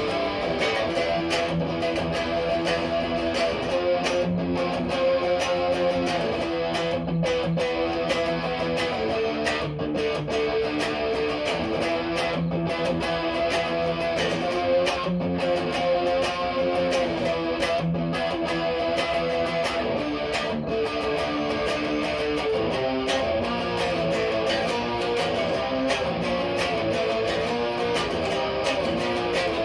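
Electric guitar played through a clone of the Electro-Harmonix Small Clone chorus pedal. Strummed chords are left to ring, changing every second or two.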